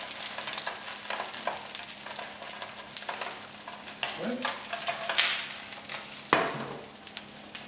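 Skin-on sea bream fillets sizzling in hot oil in a frying pan, with a few sharp clacks and scrapes of a spatula lifting them out. The sizzle thins out near the end as the pan empties.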